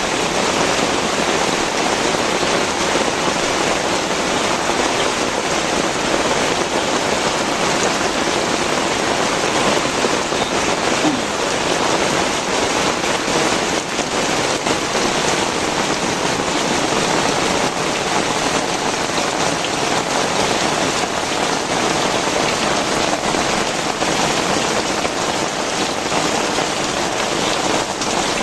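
Heavy rain pouring steadily: a dense, even hiss with a fine patter of drops hitting the ground.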